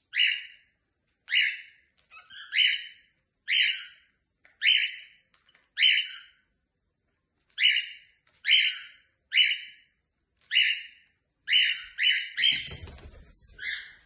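Cockatiel calling over and over: about a dozen short, loud chirping calls, roughly one a second. Near the end a low rumble of handling noise joins them.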